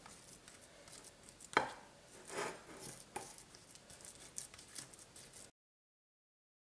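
Spatula pressing and patting a crumbly biscuit-and-cream mixture into a mound on a plate: soft scraping with a few light taps, the sharpest about a second and a half in. The sound cuts out to silence near the end.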